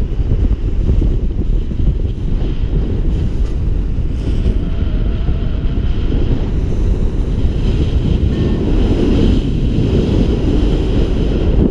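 Wind buffeting the microphone, steady and heavy and mostly low in pitch, as from airflow on a camera carried in paraglider flight.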